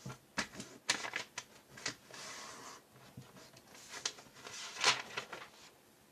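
A sheet of paper rustling and crackling as it is folded by hand and the crease pressed down, with a brief steady rubbing sound about two seconds in.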